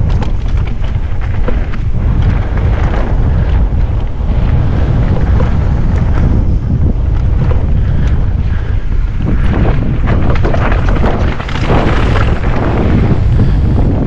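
Loud wind rush on an action camera's microphone as a mountain bike rides down a rough trail, with many short knocks and rattles from the bike over the ground.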